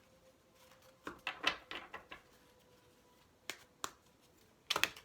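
Oracle card deck being shuffled by hand: a clatter of cards about a second in, two single snaps of cards later, and a louder clatter near the end.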